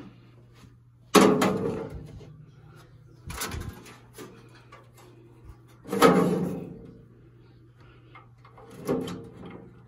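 Knocks and clunks against the sheet-metal cabinet of an ATM as a cable and modem are handled inside and on top of it: four separate hits, each ringing out briefly, over a low steady hum.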